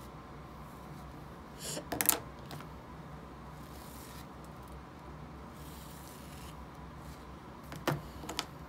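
Soft strokes of a bristle brush through slicked-back hair over a steady low room hum, broken by two short clusters of clicks and knocks, about two seconds in and near the end, as things are picked up and put down.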